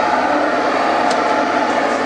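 Case 325 articulated haul truck's diesel engine and drivetrain running steadily under load, heard inside the cab, with a brief click about a second in.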